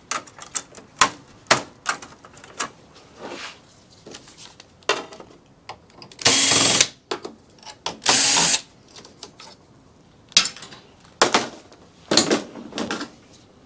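Clicks and knocks of metal server parts being handled, with two short bursts of a cordless power screwdriver running, about six and eight seconds in.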